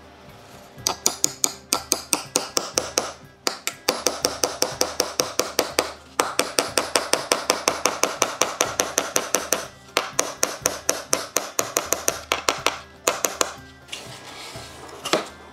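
Hammer driving nails into a wooden wagon tailgate cleat: quick, ringing strikes, about four a second, in several runs with short pauses between. A single knock near the end.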